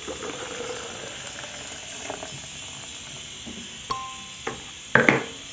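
Foamy lime juice pouring from a blender jug into a plastic pitcher, a steady splashing hiss. A short tone sounds a little before four seconds in, and a loud knock comes about five seconds in.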